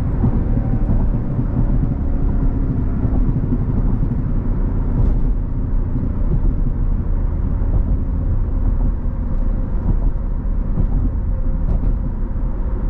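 Jeep Grand Cherokee SRT's 6.4-litre V8 and tyre noise heard from inside the cabin while cruising at highway speed: a steady low rumble with a few faint knocks.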